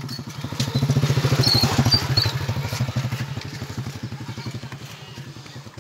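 A motorcycle's engine running as it rides past, loudest about one to two seconds in and fading as it goes away.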